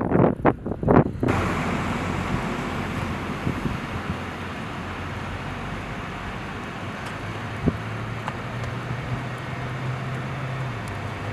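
Gusts of wind buffeting the microphone for about a second, then a steady rushing noise with a low, even hum of a vehicle engine running.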